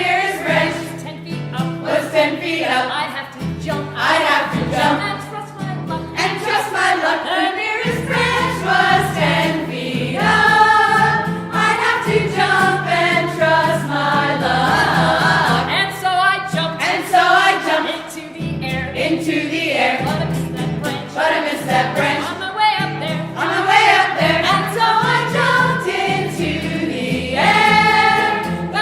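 Music: a group of voices singing together.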